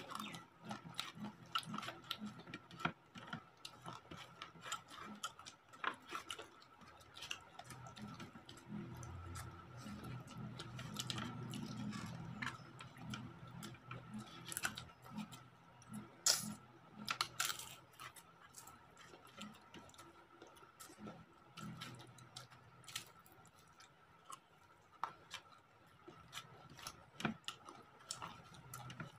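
Close-up eating sounds: chewing, with scattered sharp clicks and crunches from fried papad and potato chips and fingers working rice on a steel plate, over a faint steady high-pitched tone.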